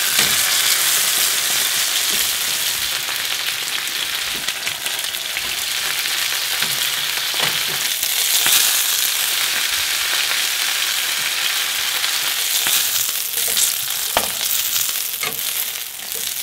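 Pieces of fluke (flatfish) sizzling in hot oil in a frying pan over medium-high heat, being crisped. A steady hiss runs throughout, with a few sharper pops and clicks.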